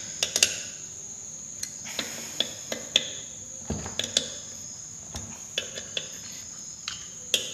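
Irregular sharp metallic clicks and knocks of hand tools and small metal parts on a Suzuki WagonR's integrated starter generator as its housing nuts are fitted and tightened, over a steady high-pitched tone.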